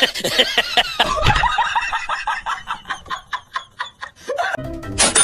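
A person laughing in a long string of quick, even 'ha' sounds that fades away, after a short loud outburst of voice at the start. Music with a bell-like chime comes in near the end.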